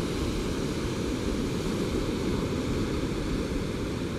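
Ocean surf background recording: a steady, deep wash of waves with no breaks.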